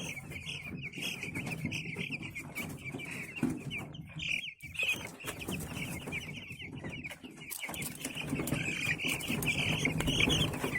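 A brooder full of week-old broiler chicks peeping continuously, many high chirps overlapping at once.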